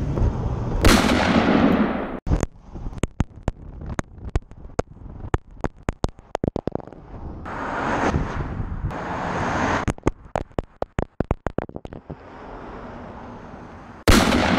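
A GoPro camera knocking and clattering on asphalt after falling off a moving truck's bumper: a rush of wind and road noise, then many rapid sharp knocks as it bounces and skids along the road, two swells of rushing noise, and a sudden loud rush near the end.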